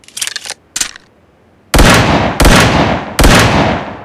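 Revolver sound effect: a few short metallic clicks of the gun being handled and cocked in the first second, then three loud gunshots about 0.7 s apart, each with a ringing tail.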